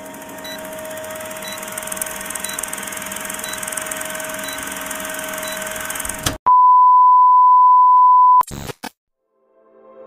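Old-film countdown sound effect: a film-projector whir with a short high blip once a second, then a loud steady beep held for about two seconds that cuts off abruptly, marking the end of the countdown.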